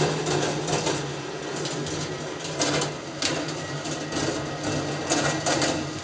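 Marbles rolling and clattering along the copper track and mechanisms of a rolling ball sculpture, with frequent sharp clicks as they hit switches and rails, over a steady low hum.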